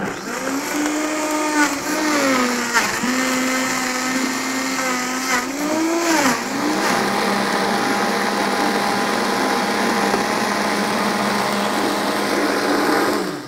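Countertop blender pureeing food scraps with water, the tamper pushed down through the lid. The motor's pitch sags and recovers several times over the first half, with a few knocks, then runs steady until it stops near the end.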